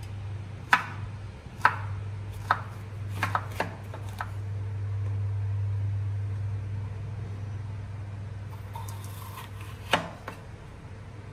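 Chef's knife chopping through zucchini and then a yellow bell pepper onto a wooden cutting board: a string of sharp knocks in the first four seconds and one more near the end, over a steady low hum.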